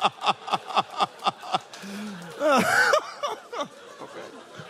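A man laughing into a microphone, a steady run of 'ha-ha-ha' about four or five a second that stops about two seconds in. A brief loud vocal exclamation and some quieter chuckling follow.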